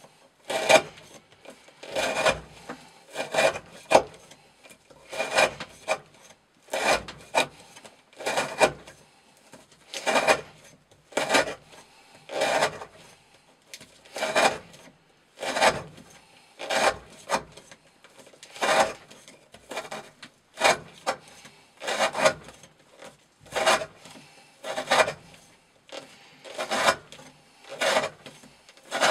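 A Chris Reeve Sebenza 21 knife, with an S35VN blade on its factory 40° V edge, slicing through a thick 20 mm rope held against a wooden block. The cuts come in repeated short scraping strokes, a little more than one a second.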